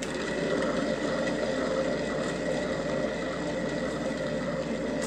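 Motorized paint-pouring spinner whirring steadily as it spins a wet acrylic-poured canvas. It starts abruptly and cuts off near the end, winding down briefly.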